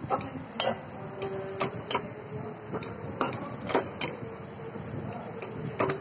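Metal spoon stirring sliced onions frying in oil in a metal pot, scraping and knocking irregularly against the pot over a steady sizzle as the onions brown.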